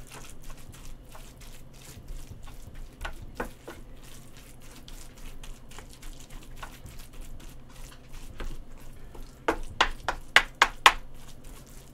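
Spoon mixing rice into the stir-fried octopus, tripe and shrimp stew in a pan: a steady run of small scrapes and clicks, then about six louder knocks in quick succession near the end.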